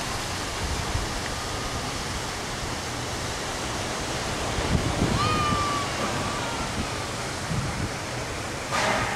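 Steady rush of surf breaking on a sandy beach. A short pitched call sounds about five seconds in, and a brief burst of noise comes near the end.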